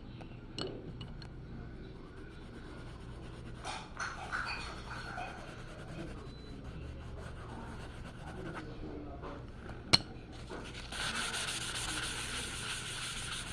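Scattered light handling clicks and one sharp click, then a steady rubbing, scraping noise for the last few seconds.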